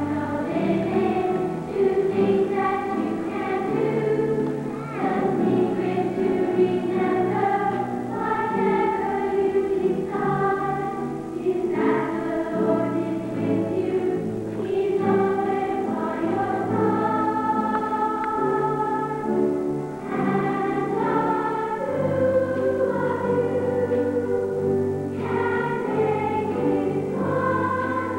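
School choir singing a number from a stage musical, with instrumental accompaniment carrying a steady bass line.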